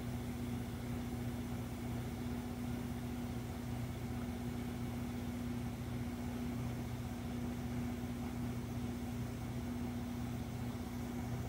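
Truck engine idling steadily: a constant hum with an even low pulse.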